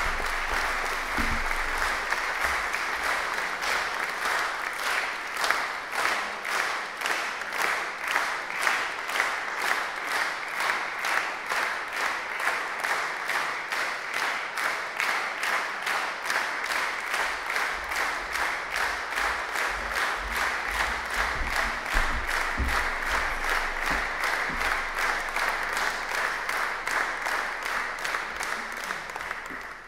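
Concert audience applauding, the claps falling into a steady rhythm of about three a second in unison, then dying away at the end.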